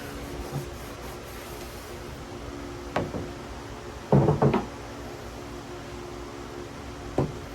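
A few sharp knocks and a short clatter as a chisel and tools are handled against the track-saw track, the loudest cluster about four seconds in, over a steady hum.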